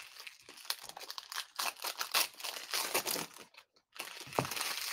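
Foil wrapper of a basketball trading-card pack crinkling and tearing as it is opened by hand: a dense run of crackles and rustles, with a short pause a little before four seconds.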